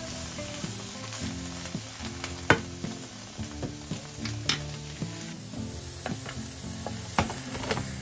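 Scrambled eggs and shrimp sizzling in a nonstick frying pan while a wooden spoon stirs and scrapes them, with sharp knocks of the spoon against the pan, the sharpest about two and a half seconds in.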